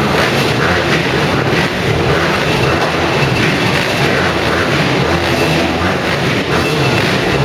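Several motocross bikes' engines running together at the start line, a dense, steady engine noise with uneven pulsing, echoing in a large indoor hall.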